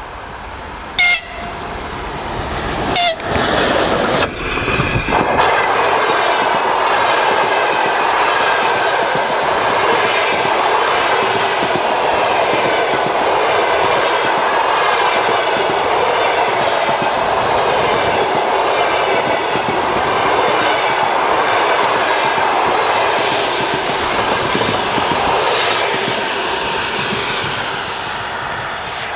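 TEP70 diesel locomotive sounding two short, loud horn blasts as it passes, then its passenger coaches rolling by with a steady rush and clatter of wheels on the rails, easing off slightly near the end.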